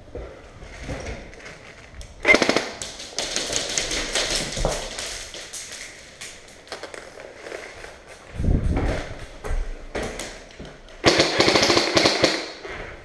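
Airsoft guns firing rapid full-auto bursts, a fast rattle of shots. One burst comes about two seconds in and lasts a couple of seconds, and another comes near the end. A low thud sounds in between.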